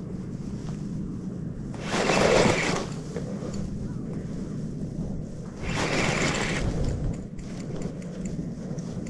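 Daiwa Crest LT4000-C spinning reel being cranked steadily, its gears whirring, while the rod is bent under the pull of a hooked fish. Two louder rushing bursts come about two and six seconds in.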